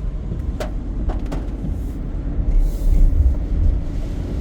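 Low rumble of a moving vehicle heard from inside the cabin, with three short sharp clicks or rattles in the first second and a half.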